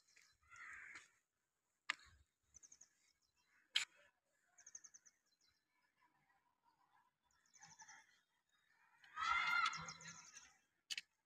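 Birds chirping in short, high, repeated trills, with a few sharp clicks and a louder wavering call about nine seconds in.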